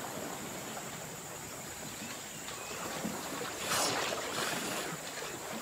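River water sloshing and splashing as a herd of Bornean elephants wades through it, with louder splashes about four seconds in.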